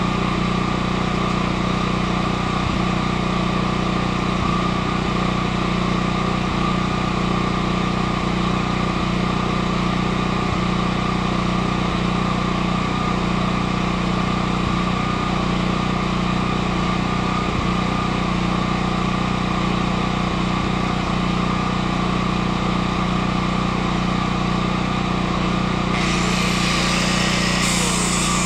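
A steady machine hum holding several fixed pitches; a higher hiss with a rising tone joins near the end.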